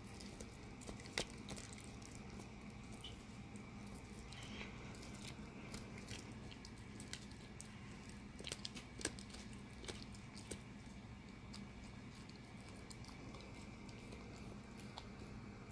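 Italian Greyhound gnawing a hand-held bully stick: irregular clicks and crunches of teeth on the chew, the sharpest about a second in and again around eight to ten seconds in, over a faint steady hum.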